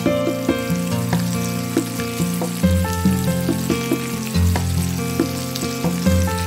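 Potatoes and pointed gourd in masala sizzling in a kadhai, with background music of low held notes that change every second or two.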